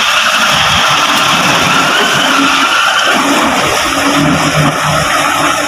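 Parked LPG tanker lorry with its engine running: a steady, loud rushing noise with a faint low hum under it.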